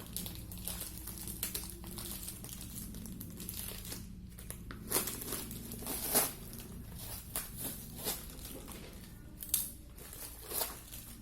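Packaging crinkling and being torn open by hand, a continuous crackle with several louder rips scattered through.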